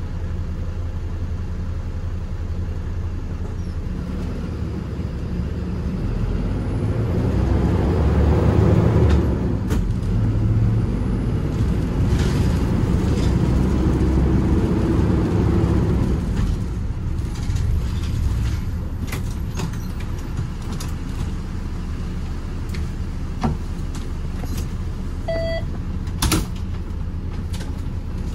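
Minibus running on the road, heard from on board: a steady low engine and road rumble that swells louder for several seconds partway through, then settles. Near the end come a short beep and a sharp click.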